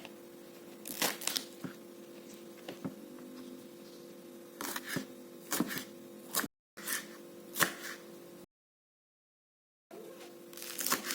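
Scattered short rustles and clicks of kitchen prep handling over a steady low hum, broken twice by sudden cuts to dead silence.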